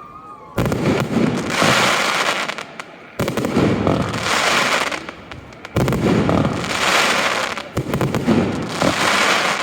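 Fireworks shells going off in a steady sequence, one about every two to two and a half seconds. Each starts with a sudden bang and trails off in a couple of seconds of dense crackling.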